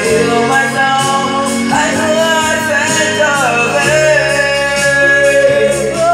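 Karaoke singing: a voice sung into a handheld microphone over a backing track, with long held notes.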